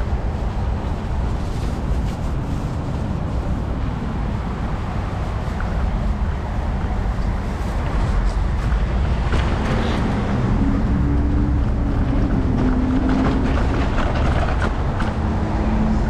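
Steady low rumble of wind buffeting the microphone and wheels rolling over pavement on a moving electric kick scooter, with light clicks from bumps. A faint low hum joins about ten seconds in.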